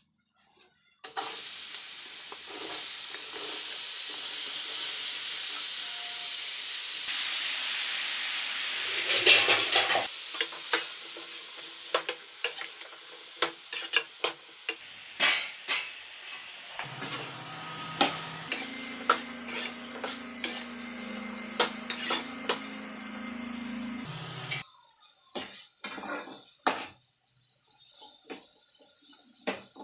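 Chopped button mushrooms sizzling loudly in hot oil in an aluminium kadai, starting suddenly about a second in as they go into the pan. From about ten seconds on a metal spoon clinks and scrapes against the pan as they are stirred, and the sizzle fades as they fry.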